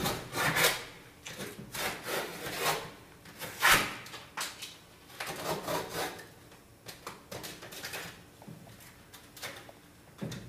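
Knife cutting and ripping through a painted canvas, a run of irregular rasping strokes, the loudest about three and a half seconds in, growing quieter toward the end as the cut flaps are pulled apart.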